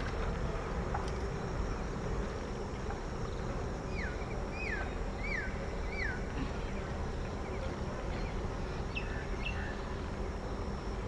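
Steady low background noise, with a bird calling four times in quick succession about four seconds in, each call a short falling whistle. A few faint chirps follow near the end.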